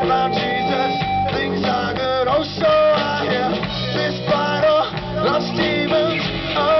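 A rock band playing live: guitar to the fore over drums, with notes bending and wavering about two seconds in.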